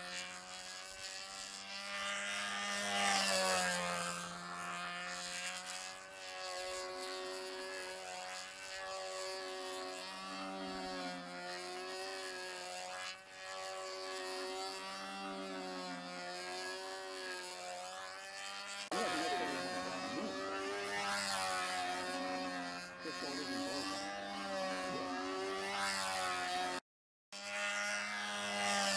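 Control-line stunt model airplane engine running steadily, its pitch rising and falling in a slow wave every couple of seconds as the plane flies around the circle on its lines. The sound cuts out for a moment near the end.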